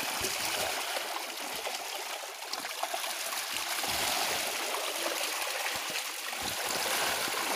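Shallow water splashing and churning continuously as a netful of small shing and magur catfish thrash, with many small splashes.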